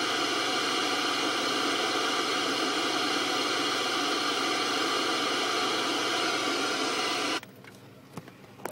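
Steady, loud hiss of static from a small RCA monitor's speaker, the noise an analog FPV video receiver puts out when it has no signal. It cuts off suddenly near the end as the monitor goes dark, leaving a few faint handling clicks.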